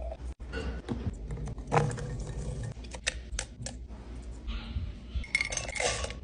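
Scattered light clicks and clinks of kitchen utensils and dishes being handled while making a shake, with a busier cluster of clatter near the end.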